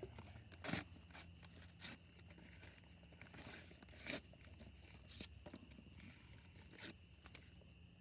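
Faint scattered crunches, scrapes and clicks, the loudest a little under a second in and again about four seconds in: handling noise while the campfire is being laid.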